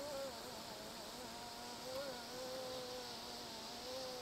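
Distant car engine running with a thin buzzing note that rises briefly three times, revving as a car works its way out of a mud rut.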